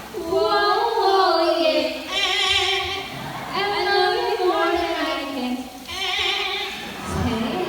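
Yellow-crowned Amazon parrots singing in a high, wavering, human-like voice, mimicking a song in several drawn-out phrases.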